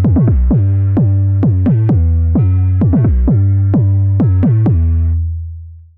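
House music track: drum-machine kick hits that drop quickly in pitch over a sustained deep bass line and synth chords, the whole track fading out about five seconds in.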